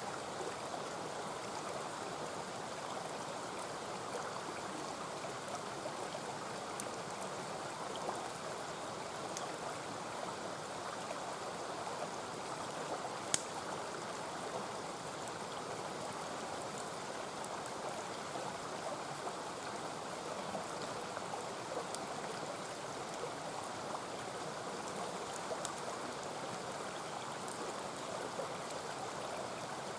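Mountain stream rushing steadily, with scattered small crackles and pops from a wood campfire; one sharper pop about 13 seconds in.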